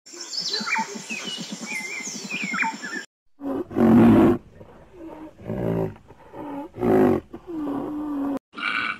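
Birds chirping over a rapid low pulsing for about three seconds, then, after a short break, a rhinoceros calling: three loud calls about a second and a half apart, the first the loudest, ending in a held lower note.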